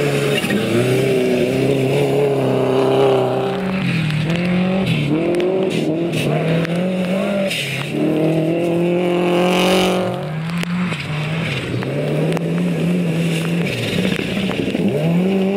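Three rally cars come through a gravel corner one after another, engines revving up and dropping back through gear changes, each giving way to the next.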